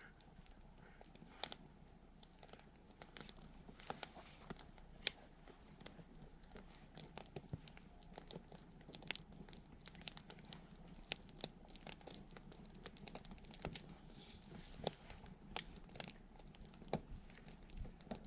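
Wood campfire crackling: irregular sharp snaps and pops over a soft hiss of the burning fire.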